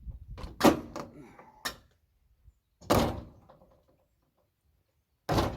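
A series of sharp knocks and thuds, five in all, with the loudest about half a second in and the last one near the end.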